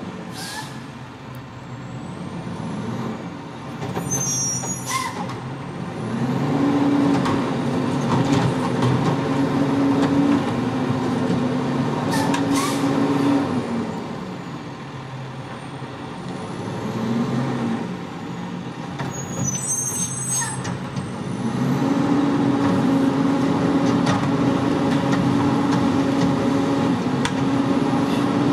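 Front-loader garbage truck's diesel engine revving up and dropping back several times as it creeps along and stops, with air brake hisses and two brief high squeals.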